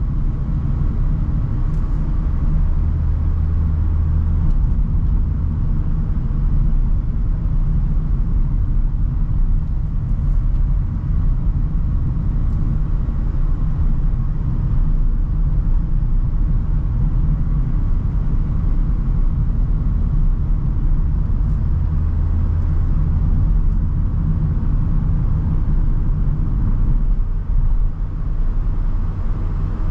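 Renault Trafic van on the move, a steady low rumble of engine and road noise.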